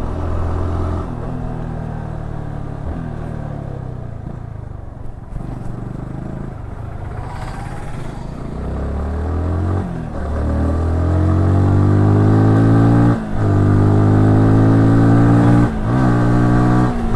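Yamaha R15S 155 cc single-cylinder engine, heard from the rider's seat. The revs fall away for several seconds as the bike slows, then the engine pulls hard with its pitch climbing steadily. Near the end there are quick upshifts, each a brief break in the note before it climbs again.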